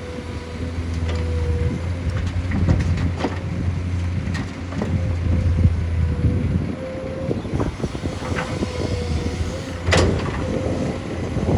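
A heavy machine's engine runs steadily with a low hum and a slightly wavering whine, under scattered metallic knocks and clanks. A louder clank comes about ten seconds in.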